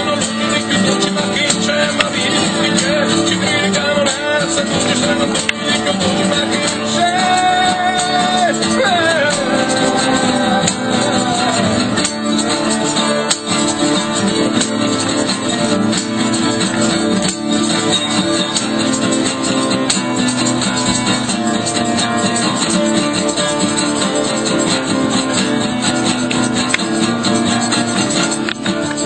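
Live band music: a Sicilian folk song played on stage, continuous and loud, with no clear sung words.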